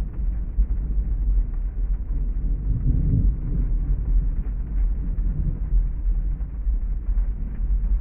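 Thunderstorm ambience: a deep, steady rumble of heavy rain and distant thunder, swelling briefly about three seconds in.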